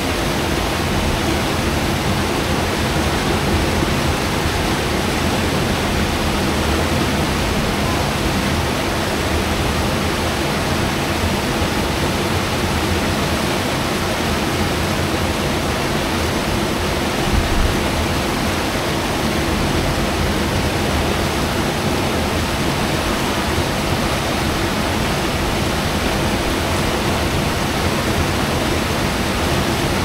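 Verzasca River whitewater rapids rushing steadily through a rock channel.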